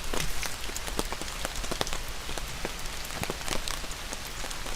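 Steady rain falling, with many irregular sharp ticks of individual drops striking a surface close by.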